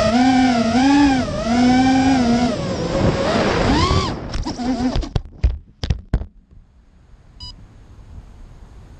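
Racing quadcopter's brushless motors (EMAX RS2205 2300KV) whining on the onboard camera's mic, the pitch rising and falling with throttle. About four seconds in it goes into the grass: a few sharp knocks and brief spurts of the motors as it tumbles, then the motors stop. One short beep follows about seven seconds in.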